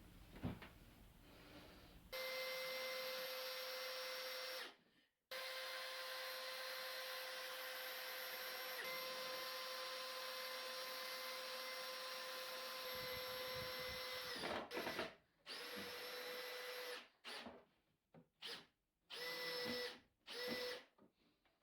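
Power drill motor whining at a steady pitch for a long run with one brief stop, then several short bursts near the end, while chipboard pieces are pre-drilled, countersunk and screwed together. There is a faint knock at the very start.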